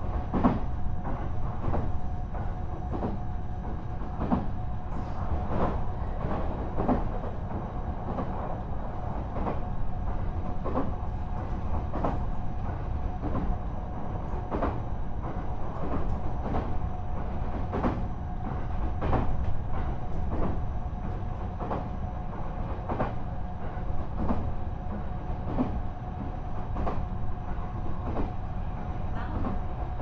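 JR East E129-series electric train (motor car KuMoHa E128-114) running at steady speed: a constant low rumble with regular clicks of the wheels over the rails, about three every two seconds, and a steady hum.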